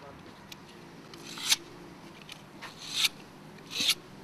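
Hand tool scraping paint off stone wall cladding: three strong strokes about a second apart, each building up and ending abruptly, with faint scratching between them.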